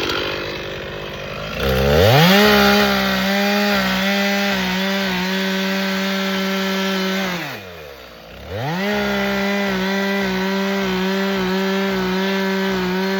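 Old Stihl two-stroke chainsaw revving up to full throttle about a second and a half in and holding steady. Around the middle it drops back almost to idle, then revs straight back up and holds again.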